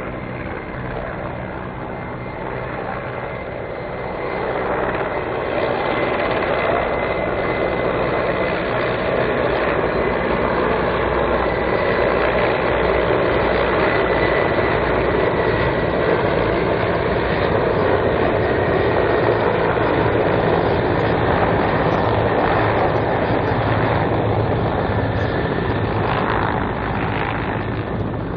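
Mil Mi-171 helicopters flying a low display pass: rotor noise with a steady high turbine whine, growing louder about four seconds in as they come closer and easing off near the end.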